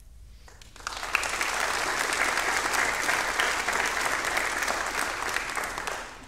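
Congregation applauding: a burst of clapping that starts about a second in, holds steady, then fades out near the end.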